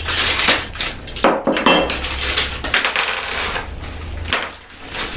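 A clear plastic parts bag crinkling and rustling as it is handled, with irregular light clicks and clinks of small hard parts.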